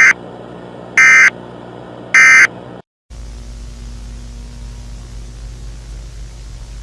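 Three short, loud digital data bursts of an Emergency Alert System end-of-message signal, about a second apart, over a low hum. After a brief cut to silence about three seconds in, a steady hiss of static with a low hum takes over.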